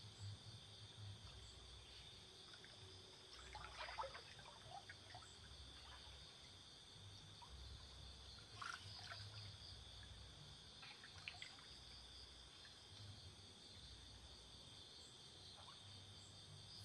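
Faint, steady high-pitched insect chorus at night, with a few soft splashes and trickles as hands grope in shallow river water, around four seconds in and again about nine seconds in.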